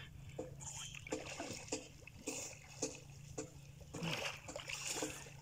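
Pond water splashing and sloshing as a person swims and ducks under to feel for fish by hand, in short irregular splashes. A louder run of splashing comes about four seconds in as he surfaces.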